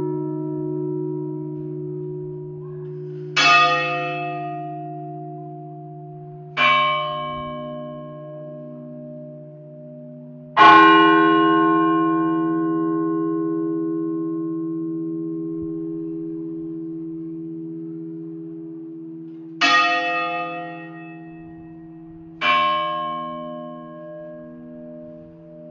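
Large bell tolling slowly: five strokes at uneven intervals, about three, seven, eleven, twenty and twenty-two and a half seconds in. Each stroke rings on with a long, wavering decay over a steady deep hum, and the stroke near eleven seconds is the loudest.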